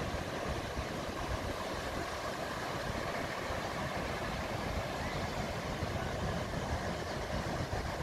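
Steady wash of surf breaking on a sandy beach, with a fluttering low rumble of wind buffeting the microphone.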